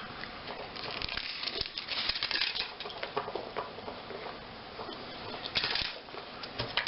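Foil wrapper of a Kinder Surprise chocolate egg crinkling and rustling as it is peeled off by hand, in irregular spells with small clicks.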